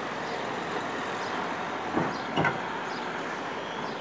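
Street traffic noise: a steady background of road vehicles, with faint walking footsteps about once a second and two sharp knocks about halfway through.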